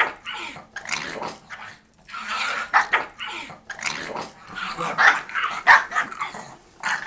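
Small Chihuahua-pug mix dog growling and barking in short, repeated bursts while spinning after her own tail.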